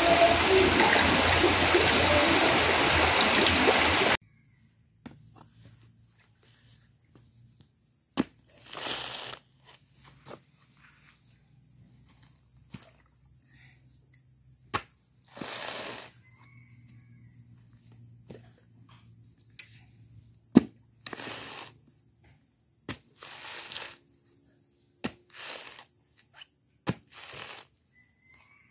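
Steady heavy rain for about four seconds, cut off suddenly. Then a mature coconut is husked: several sharp knocks and about six short tearing rasps as the fibrous husk is prised apart strip by strip.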